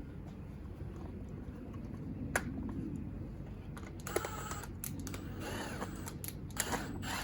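Scattered light clicks and knocks of small trimmer parts and tools being handled during reassembly, a single click about two seconds in and a quicker run of them in the second half, over a steady low hum.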